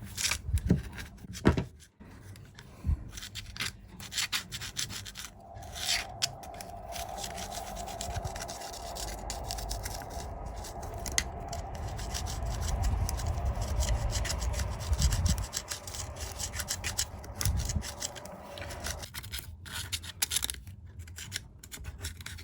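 Scraping and rubbing as thick built-up grease and muck are cleared from a bicycle wheel hub. A steady hum joins in from about five seconds in and stops shortly before the end.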